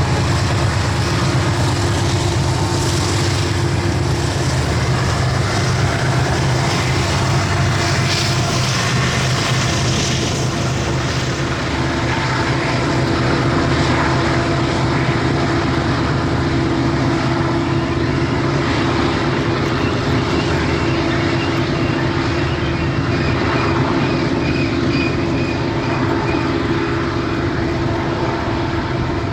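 BNSF diesel-electric freight locomotives running past, a loud, steady low engine drone with a broad rushing noise of the train over it.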